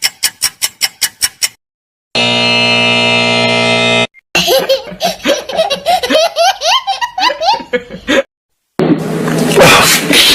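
A string of cartoon sound effects. First comes a quick run of even clicks, then a steady buzzer tone about two seconds long. Then a child giggles and laughs for about four seconds, and a loud, noisy stretch with beats comes in near the end.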